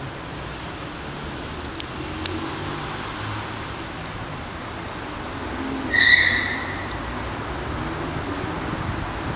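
A cat crunching dry kibble out of a plastic tub, with two sharp clicks about two seconds in, over steady traffic rumble. About six seconds in, a brief high-pitched squeal is the loudest sound.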